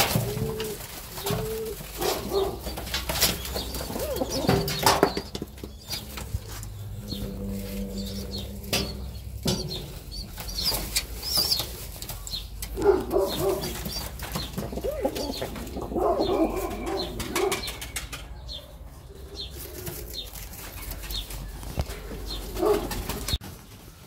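Serbian highflyer pigeons flapping their wings in short flurries, with pigeons cooing in between.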